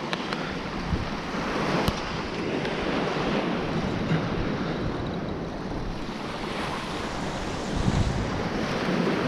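Ocean surf washing on the beach with wind buffeting the microphone, swelling a little louder near the end.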